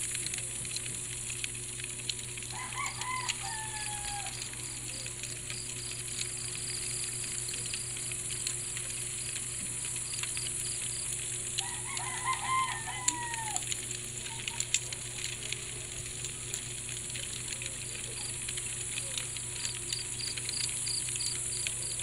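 A rooster crowing twice, about ten seconds apart, each crow rising then falling and lasting about a second and a half. Under it, crickets chirp steadily and there is a low steady hum.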